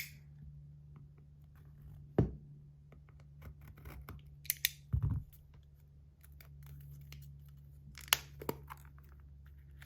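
Packaging being cut open and handled: scattered crinkles, snips and small clicks, with a knock about two seconds in, a low thump about five seconds in and a sharp click near the end, over a steady low hum.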